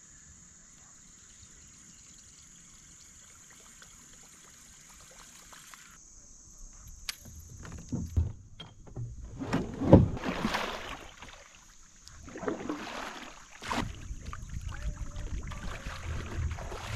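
Kayak on a shallow creek: water splashing and sloshing against the paddle and hull in uneven surges from about eight seconds in, with a sharp knock a little before the end. Before that there is only a faint steady high hiss.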